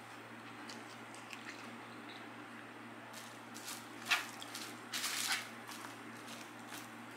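Hand-eating sounds: faint wet mouth clicks from chewing, then about halfway through a hand digging into rice and fries in a foil-lined tray, giving a few short rustling, squishy scrapes.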